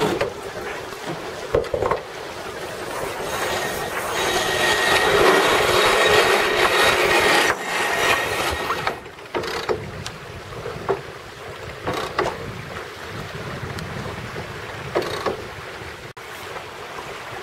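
Rushing water and wind noise from a racing sailboat under way, swelling to its loudest a few seconds in and easing off again, with scattered knocks.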